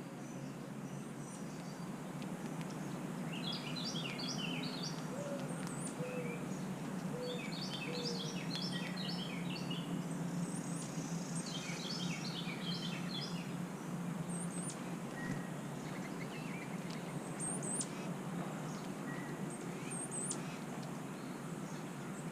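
Carolina wren singing three bursts of quickly repeated phrases, a few seconds apart, with faint high chips from other birds and a steady low hum underneath.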